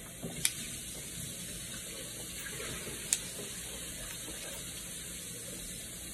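A person gulping water from a plastic water bottle, with the bottle crackling sharply twice, over a steady hiss.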